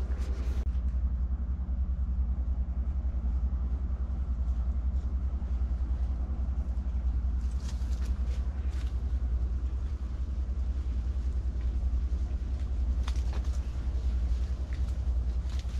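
A steady low rumble with a constant hum, and a few brief rustles from walking through dry corn leaves, once around the middle and again near the end.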